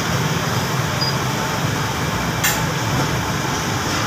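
Steady street traffic noise from a busy bazaar: a constant low hum of engines and road noise, with a brief click about two and a half seconds in.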